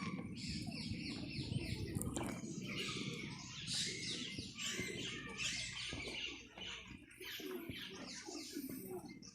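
A group of birds chirping, with many short overlapping calls thickening about two seconds in, over a low background rumble.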